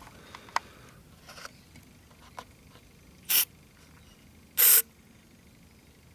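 Aerosol spray can giving two short hisses a little over a second apart, after a few light clicks of handling. It is being sprayed into the air-intake hole of an old lawnmower engine to help it start.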